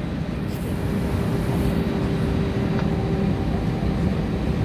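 Cabin noise of a jet airliner taxiing after landing: a steady low rumble with a steady hum from the idling engines, a second, higher hum joining about three seconds in.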